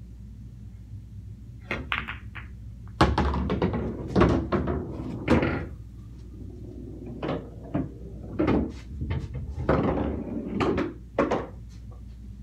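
Pool balls on a coin-operated bar table: the cue strikes the cue ball with a sharp click about two seconds in, then the balls knock together and thud, and a pocketed ball drops into the table's ball return. More scattered knocks and clicks follow as the balls settle.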